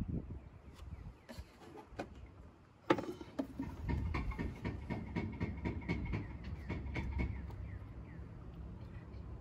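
Handling noise of a plastic motor-oil jug at an oil-filler funnel: a sharp knock about three seconds in, then a run of rattling and clicking, and oil starting to pour from the jug into the funnel near the end.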